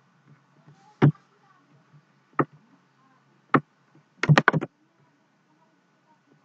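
Sharp clicks of a computer mouse and keyboard: single clicks about a second apart, then a quick run of about four clicks a little after four seconds in, and one more at the end.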